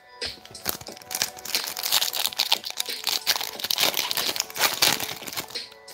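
Shiny wrapper of a Prizm Monopoly basketball trading-card pack being torn open and crinkled by hand, a dense crackling that starts just after the beginning and stops shortly before the end.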